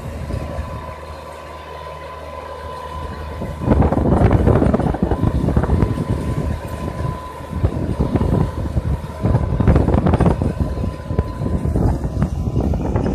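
A BC404 40 hp diesel tractor's engine running steadily while it pulls a plough through the soil. From about four seconds in, loud, uneven wind buffeting on the microphone covers much of it.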